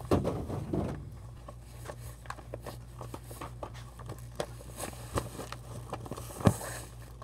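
Close handling noise from a shiny mermaid-scale fabric bag being moved and rubbed right by the microphone: a burst of rustling in the first second, then scattered crinkles and small clicks, with one sharp click about six and a half seconds in.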